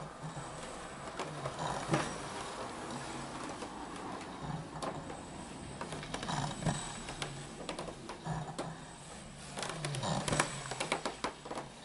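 Ninebot One S2 electric unicycle's hub motor whirring in short spells as it rocks back and forth on carpet, with small knocks and clicks throughout, more of them near the end.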